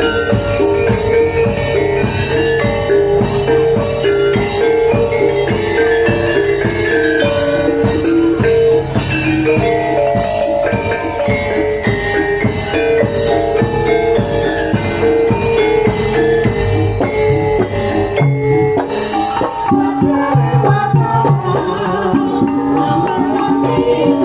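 Ketoprak accompaniment music: struck metal mallet percussion and drums in fast, even strokes over steady held notes. About eighteen seconds in it breaks off and turns sparser, with long-held tones.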